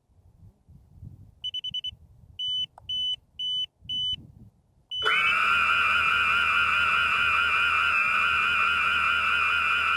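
FPV cinewhoop quadcopter: a run of short high beeps, four of them evenly spaced about half a second apart, then its motors start about five seconds in and run with a steady high whine.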